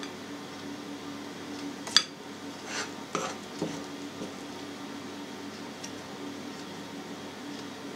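A spoon clinking and knocking against a mixing bowl as flour and oil are stirred into a yeast dough: one sharp clink about two seconds in, then a few softer knocks, over a steady low hum.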